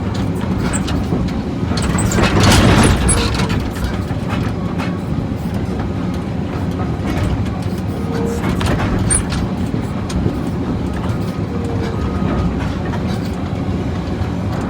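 Cat 345D excavator's diesel engine running steadily under load, with scattered clanks from the pulverizer attachment. A louder burst of knocking comes about two to three seconds in.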